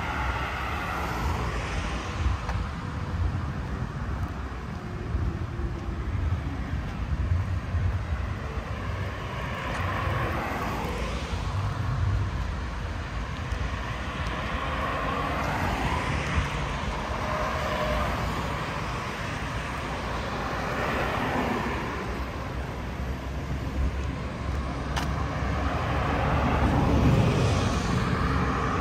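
City road traffic: cars passing one after another, each swelling and fading over a steady low rumble, with the loudest pass near the end.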